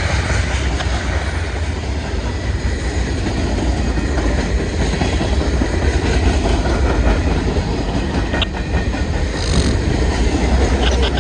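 CSX manifest freight train's cars rolling past on the rails: a steady, loud rolling noise of wheels on track, heaviest in the low end, with a brief sharp click about eight and a half seconds in.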